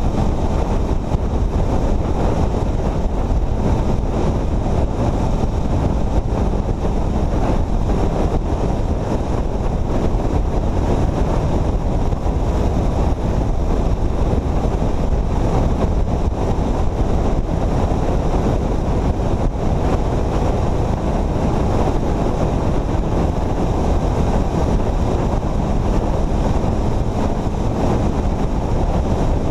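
Steady rushing wind noise on the microphone of a vehicle moving at highway speed, mixed with road and engine noise.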